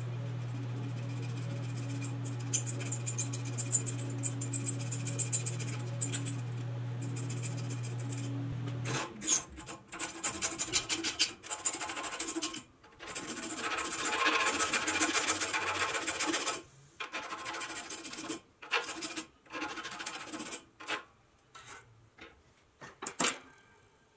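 Workshop work on restoration parts: a steady electric hum with hiss and fine ticking for about nine seconds, stopping abruptly, then irregular rasping and rubbing strokes in short bursts with pauses between them.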